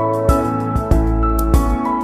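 Background music: an instrumental with held notes and a soft beat about every 0.6 seconds.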